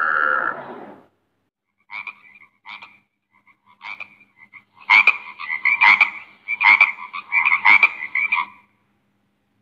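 Frog croaking: a few short, scattered croaks, then a louder run of rapid croaks that stops shortly before the end. It opens with the end of a long, wavering pitched animal call that fades out within the first second.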